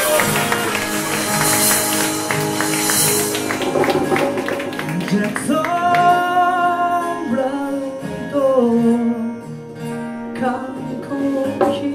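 Live band playing a song: a singer over acoustic and electric guitars and drums. The cymbals are bright at first and drop away about halfway through, and the playing gets a little softer near the end.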